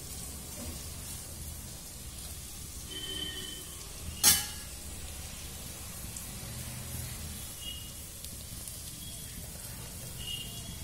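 Diced carrot and capsicum sizzling steadily in oil in a pan while being sautéed, with one sharp metallic clank about four seconds in as a steel slotted spoon is set down on a steel plate.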